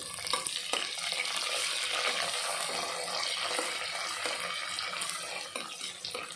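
Onions, green chillies and curry leaves frying in hot oil in a pressure cooker pot, a steady sizzle with a few light clicks of the spoon stirring them.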